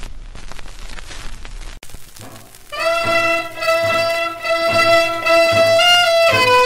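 Music from a 1960s trot song compilation. One song's instrumental ending fades and is cut off about two seconds in. The next song's intro then starts with a held, stepping melody line over a steady beat.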